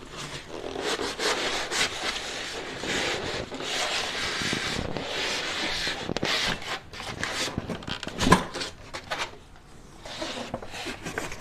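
Polystyrene foam packing tray rubbing and scraping against the sides of a cardboard box as it is worked loose and lifted out, with one sharp knock about eight seconds in.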